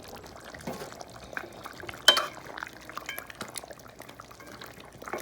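A spoon stirring curry chicken in a cooking pot: scattered scrapes and small knocks, with one sharp clink against the pot about two seconds in.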